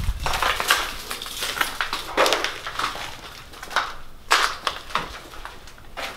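Footsteps of several people crunching and scraping over debris on a littered floor, in uneven steps with a few louder crunches.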